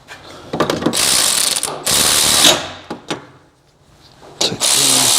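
Ratchet wrench clicking rapidly in two runs of about two seconds each, with a few single clicks between, as it turns a Loctited caliper bracket bolt in on a rear brake.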